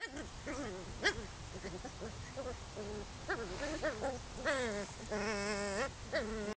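A Chow Chow vocalising in a run of short whines and yowls that bend up and down in pitch. Near the end comes one longer, wavering call, then a last short one.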